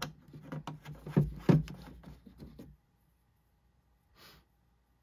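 Handling noise from cleaning the parts of a disassembled folding knife: a quick run of small clicks and rustles as parts and a cleaning patch are handled. Then quiet apart from one short soft rustle near the end.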